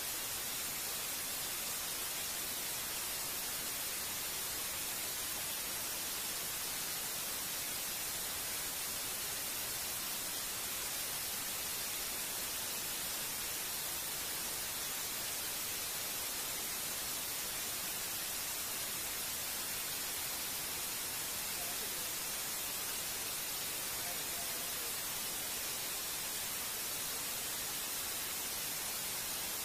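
Steady static hiss with no change throughout: the noise floor of a video-call recording, with no voice coming through.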